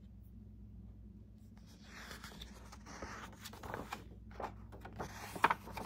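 Paper rustling and a few soft clicks as the pages of a hardback picture book are handled and turned, over a faint steady hum.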